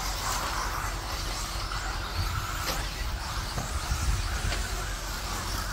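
Radio-controlled mini truggies racing on a dirt track, their motors whining up and down, over a steady low rumble. One sharp click about two and a half seconds in.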